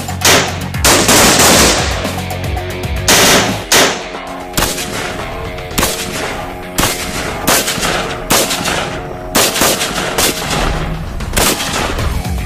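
Gunfire from K2-series 5.56 mm rifles: a few short automatic bursts in the first four seconds, then single shots about once a second. Background music plays underneath.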